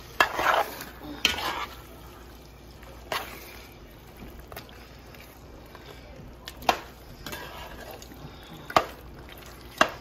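A spatula stirring a thick, cooking-down stew of greens in a metal pot: wet stirring and squelching, with a few sharp knocks and scrapes of the utensil against the pot.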